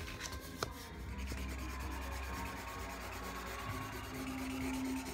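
Felt-tip marker rubbing back and forth on paper, colouring in a large area, with a sharp tap about half a second in.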